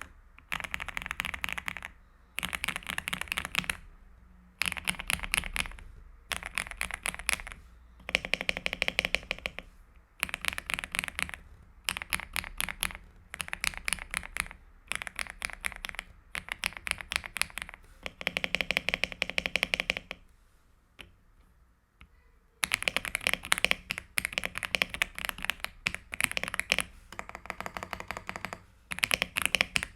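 AULA F75 mechanical keyboard with LEOBOG Ice Vein linear switches being typed on in bursts of rapid keystrokes, with a pause of about two seconds around two-thirds of the way in.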